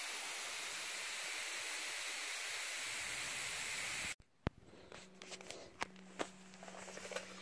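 Steady hiss of steam from two carpet seaming irons pressing through a cloth onto a carpet seam. It cuts off abruptly about four seconds in, leaving a few faint clicks and knocks over a low hum.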